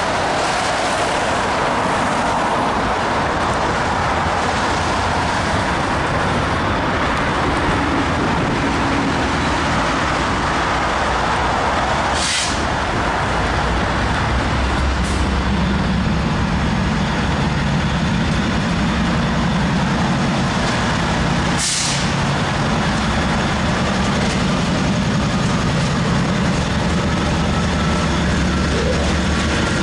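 BNSF diesel locomotives rumbling as they approach at slow speed. Their low engine drone builds from about halfway through, over a steady hiss of wet-road traffic. Two short, sharp hisses come about ten seconds apart.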